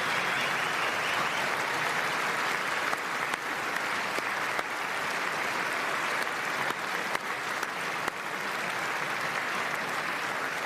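Large audience applauding steadily, a sustained ovation of dense clapping.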